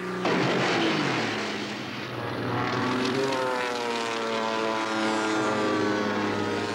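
Single-engine propeller light airplane flying past; its engine note drops sharply about a second in, then runs on with a slowly wavering pitch.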